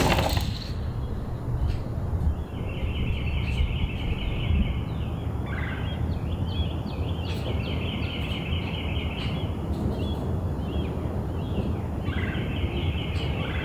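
Wild birds calling from woodland: several rapid trills of high repeated notes, each lasting a second or more, and scattered short chirps, over a low steady rumble.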